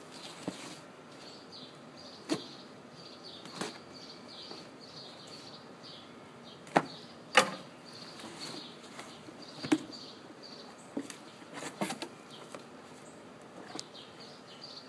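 A package being opened and its contents handled: scattered rustles, clicks and knocks, with two louder sharp knocks about seven seconds in.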